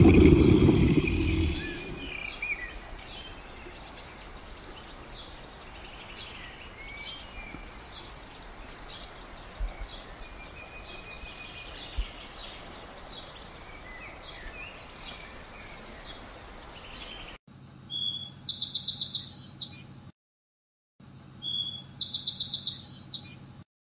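Small birds chirping again and again over a steady outdoor background hiss, with a low rumble fading out in the first two seconds. About 17 s in, the birdsong cuts off and two louder bursts of an electronic sound effect follow, each about two seconds long, with a second of silence between them.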